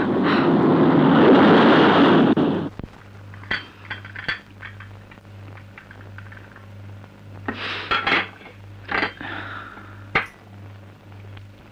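Heavy rain hissing, cut off suddenly after about two and a half seconds. Then china cups and saucers clinking several times on a tray and table as tea is served, over a steady low hum.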